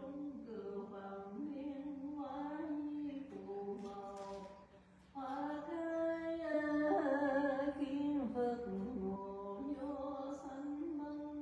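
A voice chanting in long held notes that step up and down, over a steady low hum. The level dips briefly just before five seconds in, then the chant comes back louder.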